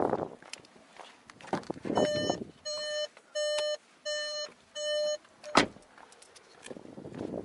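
Volkswagen Golf's in-car warning chime beeping five times at an even pace, each beep a clear tone, then a single sharp thud a moment later like the door being shut.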